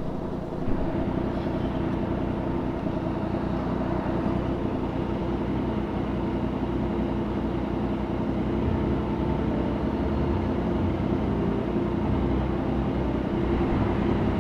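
Yamaha MT sport motorcycle engine idling steadily while stopped.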